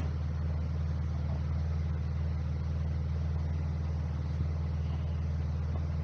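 A car engine idling steadily, a low even drone.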